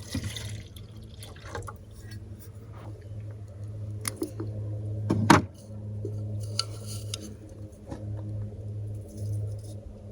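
Water being poured and cookware handled while coffee is made, with small clinks and one sharp knock about five seconds in, over a steady low hum.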